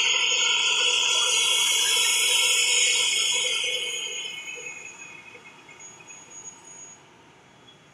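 ATR 72-500's turboprop engines running at low power with the propellers turning: a high-pitched whine of several steady tones that fades away over the second half as the aircraft turns and moves off.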